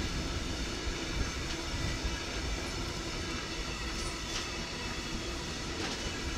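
Freight train of oil tank wagons rolling past at close range: a steady rumble of wheels on the rails with a few light clicks, the last wagons going by near the end.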